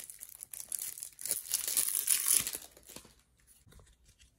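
Clear plastic shrink-wrap being torn and crinkled off a deck of cards. It crackles for about three seconds, then dies down to a few faint rustles.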